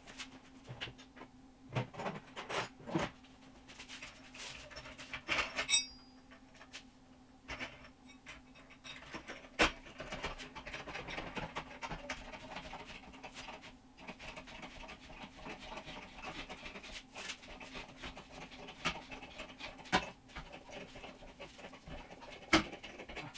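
Hydraulic floor jack being pumped to lift a car: irregular creaks and clicks from the handle and lifting arm, over a faint low steady hum.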